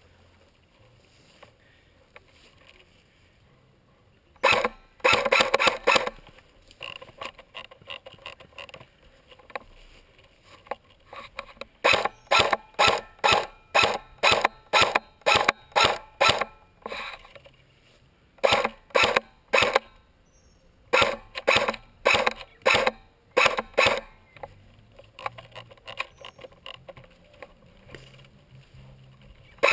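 Airsoft guns firing in several runs of sharp, rapid shots, about three a second, with quiet gaps between the runs.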